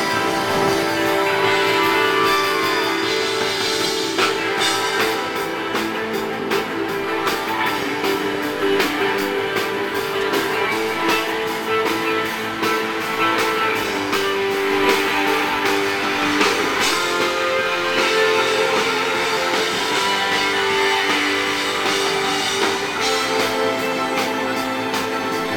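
Live rock band playing on an outdoor stage: electric guitar over a steady drum kit beat.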